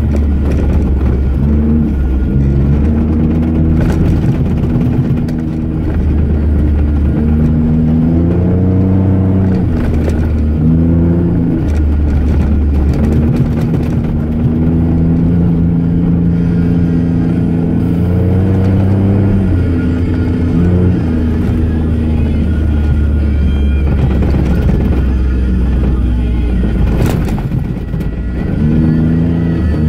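Jeep Wrangler JK engine under way on a rough sand trail: the revs climb and drop back several times as it shifts through the gears, over tyre noise, with a few sharp knocks from the bumps, the strongest near the end.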